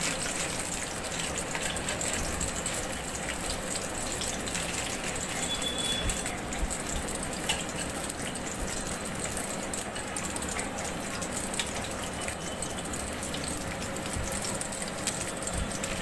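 Hot oil sizzling steadily in a pot as sliced onions, green chillies, bay leaves and whole spices fry, with a few small pops.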